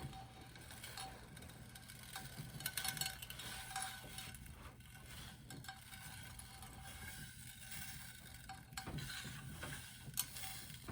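Sprinkles rattling and skittering in a baking pan as a log of cookie dough is rolled through them: faint, scattered small clicks and rustling.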